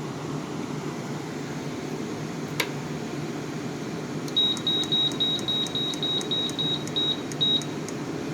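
Fedders window air conditioner's blower fan running steadily with the compressor off; the owner thinks its fan motor bearings are a little dry. A single click comes about two and a half seconds in. From about four seconds in, a dozen short high beeps follow, about three a second, from the unit's electronic control panel as its buttons are pressed.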